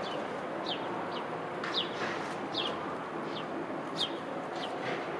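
A bird chirping over and over: short, high notes that fall in pitch, roughly two a second, over a steady outdoor hiss.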